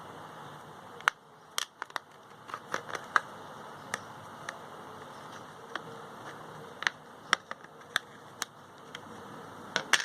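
Scattered sharp plastic clicks and taps from handling a smartphone, opening it up to reach its SIM and memory card slots, over a low steady hiss.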